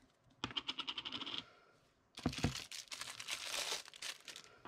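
Small plastic pots and lids being handled on a desk: a quick run of small clicks, then, after a short pause, a longer scratchy rubbing with scattered taps.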